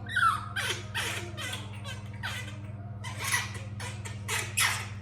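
Baby monkey giving a run of short, shrill squeaks and cries, about seven calls, some falling in pitch.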